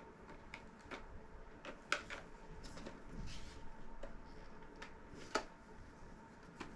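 Light plastic clicks, taps and handling noise as a toy belt strap is fitted around its plastic buckles, with a sharper click a little before two seconds in and another a little past five seconds.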